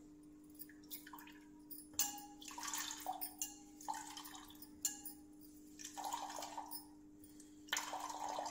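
Freshly ground coconut being wrung by hand in a wet cloth, coconut milk splashing and dripping into a steel bowl in irregular spurts as it is squeezed.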